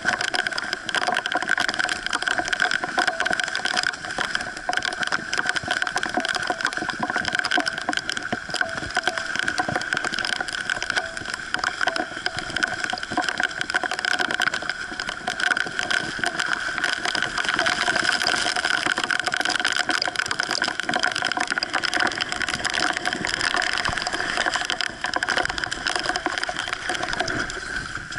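A boat under way, with a steady high hum over rushing, crackling water noise.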